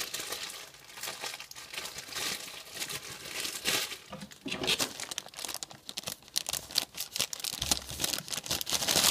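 Plastic mailing bag being torn open and crumpled by hand, an irregular run of crinkling and rustling.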